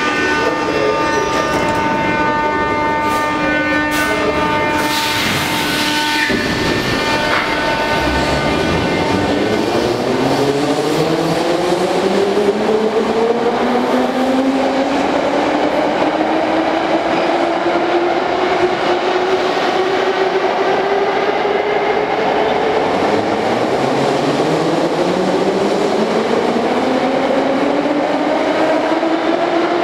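81-717/714 metro train standing with a steady hum, then a short hiss of air about five seconds in. It pulls away, and the whine of its traction motors rises in pitch as it accelerates. A second rising whine starts a little past twenty seconds in.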